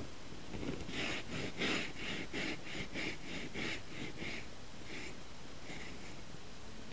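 Footsteps crunching in deep, cold snow, a quick run of short steps that slows and fades out about six seconds in.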